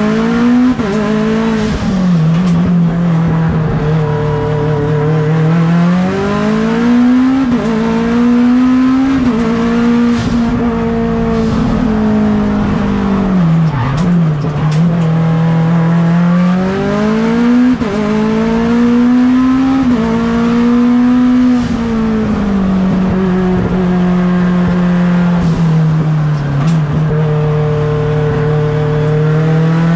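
Turbocharged 4B11 four-cylinder engine of a race-prepared Mitsubishi Lancer Evolution X, heard from inside the car at full throttle. The engine note climbs and falls over and over as the car accelerates, shifts and lifts for corners.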